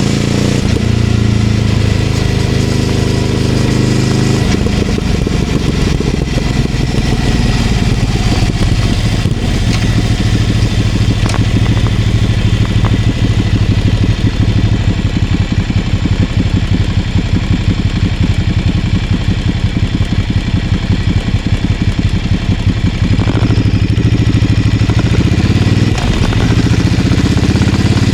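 Ducati Scrambler Icon Dark 800's air-cooled L-twin running through a Leovince LV-10 exhaust while riding. The revs drop just after the start, then hold a steady low-rev note with a fast pulsing beat through the middle. Near the end the engine revs up, dips briefly at a gear change and rises again.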